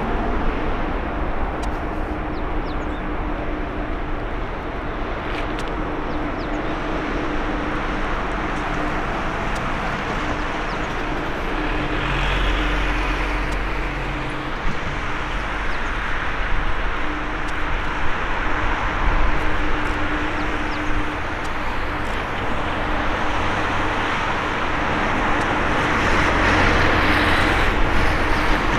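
Boeing 787-9 airliner's jet engines running at low taxi power as it rolls slowly past: a steady rumble and hiss with a faint hum, swelling a little near the end.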